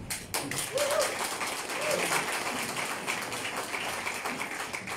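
Audience applauding, with a couple of brief voices calling out in the first two seconds.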